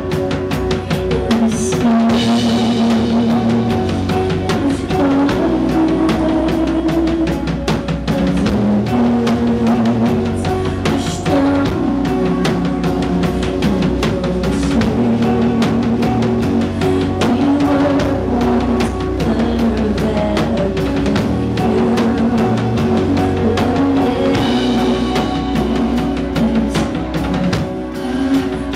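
Live rock band playing a song: a drum kit keeping a steady beat under electric guitars and bass guitar.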